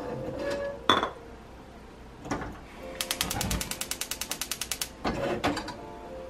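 A metal pan knocks down onto a gas-hob grate about a second in. About three seconds in, the hob's push-and-turn ignition clicks rapidly, about thirteen clicks a second for two seconds, as the burner lights.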